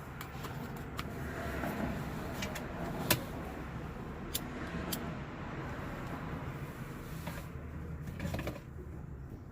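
Steady low vehicle rumble with a few sharp clicks, the loudest about three seconds in.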